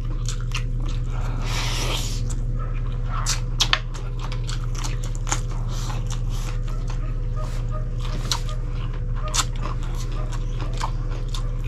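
Close-miked chewing of grilled chicken by two people eating with their hands: many small wet mouth clicks and smacks. A steady low hum runs underneath.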